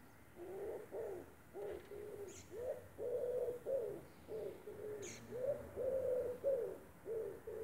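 A pigeon cooing: a series of low coo notes in repeated phrases, some short and some held for about half a second, starting about half a second in.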